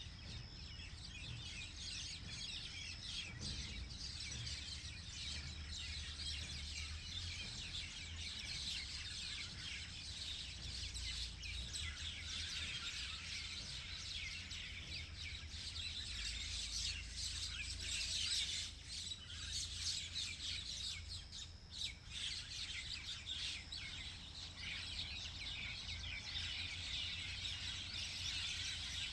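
A flock of small birds chirping and twittering together in a dense, continuous chatter of short high calls, thinning briefly about two-thirds of the way through.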